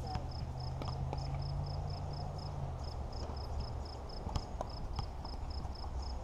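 Pickleball rally: a few sharp, irregular pops of paddles hitting a plastic ball and the ball bouncing on the hard court. A high chirp repeats about three times a second behind it, and a low hum fades out about three seconds in.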